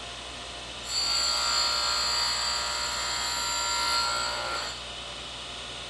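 Reid surface grinder's wheel grinding a chamfer on the edge of a metal block guided along a 3D-printed chamfer block. A steady, high-pitched grinding sound with ringing tones starts abruptly about a second in and fades out near the end, over the steady hum of the running spindle.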